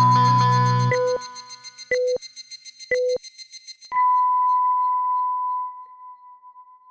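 Band music with electric guitar stops about a second in. Then a telephone time-signal chime sounds: three short beeps a second apart, then one long higher beep an octave up that slowly fades.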